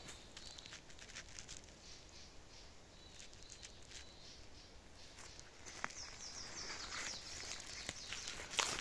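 Footsteps crunching and rustling through dry fallen leaves on a forest floor, sparse at first and then closer and denser from about halfway, with twigs brushing past. The loudest crunch comes near the end.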